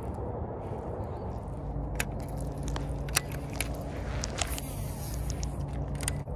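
Shimano Curado baitcasting reel being cranked through a jerkbait retrieve: a steady low whir from about one and a half seconds in, with several sharp clicks from working the rod and reel, over wind rumble on the microphone.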